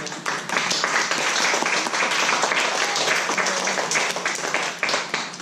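Audience applause, many hands clapping together, which thins out near the end.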